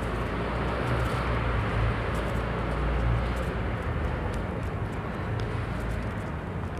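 Steady low rumble of city traffic and background noise, with faint light ticks of footsteps on concrete.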